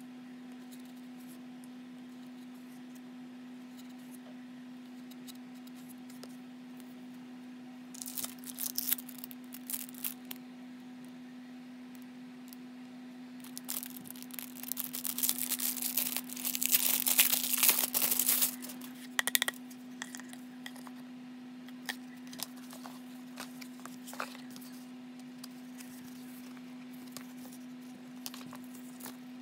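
Clear plastic wrapping crinkling and tearing as it is handled and opened, in two bouts: a short one about a third of the way in and a longer, louder one around the middle, followed by a few small clicks. A steady low hum runs underneath.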